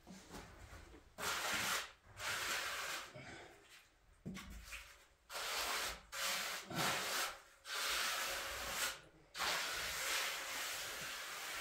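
A hand trowel scraped back and forth over a cement floor: about ten coarse rubbing strokes, roughly one a second, each lasting half a second to a second with short pauses between.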